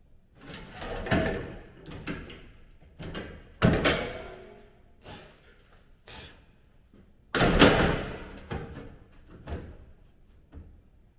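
An irregular run of knocks and clunks, about ten of them, some ringing briefly; the loudest come a little over a third of the way in and about two-thirds through.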